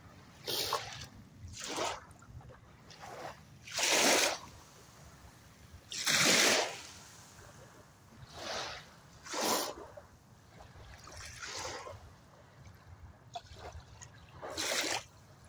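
Small waves lapping and trickling over pebbles and seaweed, in short irregular splashes a second or two apart.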